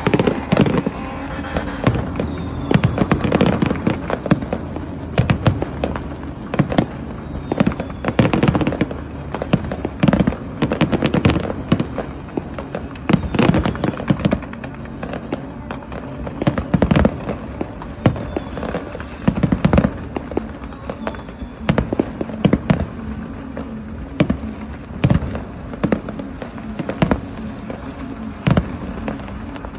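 Fireworks going off: a long run of sharp bangs, some coming in quick clusters, over a steady background noise.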